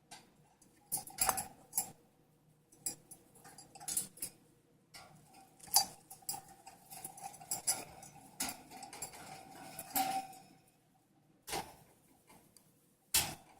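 Irregular clicks, taps and light rattles of hard objects being handled, with louder knocks about a second in and near the end.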